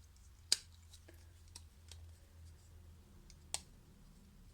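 Small clicks from handling phone parts and repair tools during reassembly: two sharp clicks about three seconds apart, with a few faint ticks between, over a faint low hum.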